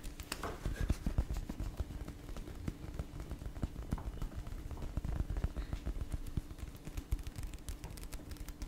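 Fingers tapping and scratching on a paperback book's cover held close to the microphone: many quick, irregular taps with a deep thump to them.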